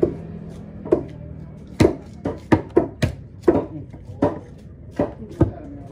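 Heavy knife chopping through a fresh tuna and knocking into the wooden chopping block: about ten sharp strikes at an uneven pace.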